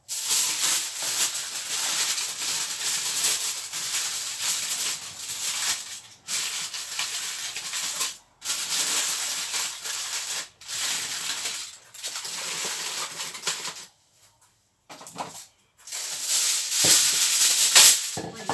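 Aluminium foil crinkling and rustling as it is folded and scrunched around fish, in stretches of a few seconds with short pauses and a longer pause about fourteen seconds in.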